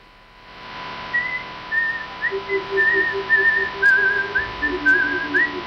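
Playback of a recording picked up by a single hair of a bionic MEMS flow sensor modelled on cricket hairs, used as a microphone. Warbling whistle-like tones and lower trilled notes sound over a steady hiss and a constant hum that fade in during the first second. The signal is noisy, with a signal-to-noise ratio way worse than the original recording.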